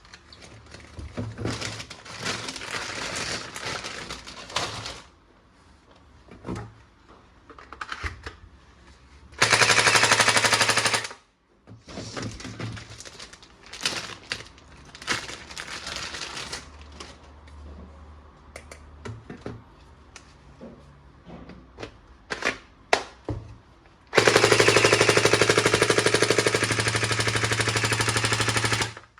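Electronic toy gun playing its rapid-fire machine-gun sound effect through a small speaker: a burst of about two seconds roughly ten seconds in, and a longer burst of about five seconds near the end. Between the bursts come scattered clicks and rustling of plastic parts being handled.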